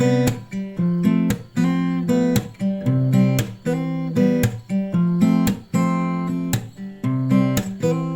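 Acoustic guitar strumming chords in a steady rhythm, as background music.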